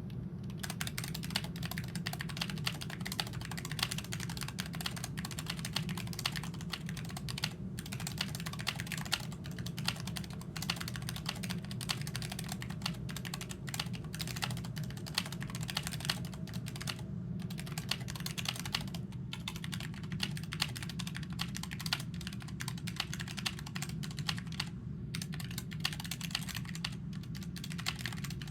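Steady typing on a Couso CODi CX40 low-profile mechanical keyboard with Huano low-profile red switches: a fast, continuous stream of key clicks, with a few short pauses.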